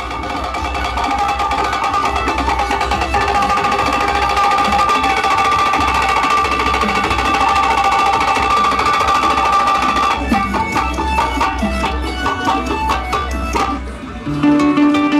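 Loud Brazilian funk music: a pulsing bass beat under a held synth chord that cuts off about ten seconds in, followed by choppy percussion.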